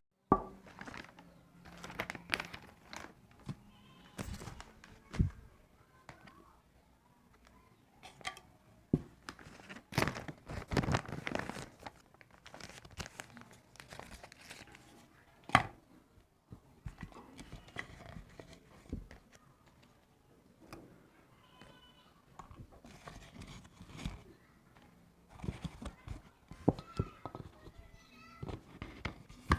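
Irregular handling noises: rustling and crinkling with scattered clicks and a few sharper knocks.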